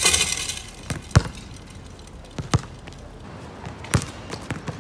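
A basketball dunk: the rim and backboard clatter loudly for about half a second. Then a basketball bounces on the outdoor court with a few sharp thuds, spaced more than a second apart.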